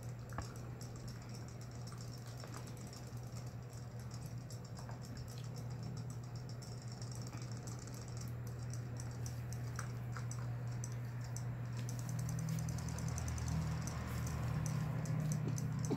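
Battery-powered robotic fish toys swimming in a plastic basin of water, their small motors and flapping tails making a fast, fine clicking that gets busier in the last few seconds, over a steady low hum.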